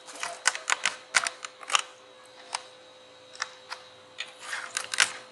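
Irregular light clicks and taps of an aluminium LED backlight strip and small tools being handled on a wooden workbench, a quick run of them at first, then scattered ones, over a faint steady whine.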